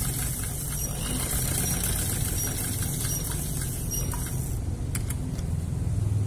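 Sewing machine running as it stitches, with a steady motor hum underneath; the stitching stops a little past halfway, followed by a couple of sharp clicks.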